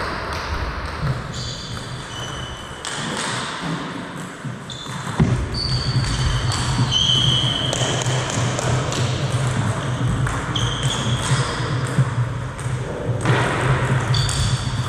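Table tennis hall sounds: short high squeaks of shoes on the wooden gym floor, a few table tennis ball knocks and bounces, and a steady low hum that starts suddenly about five seconds in.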